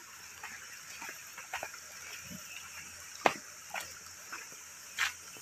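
Faint, irregular crunches and clicks of footsteps on a stony dirt path, the sharpest about three seconds in and near the end. Under them runs a steady high hiss of insects.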